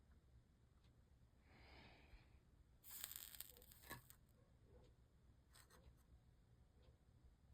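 Near silence, broken by two faint short sizzles of a soldering iron on fluxed lead came and solder, the second one brighter, about two and three seconds in, and a light click about four seconds in.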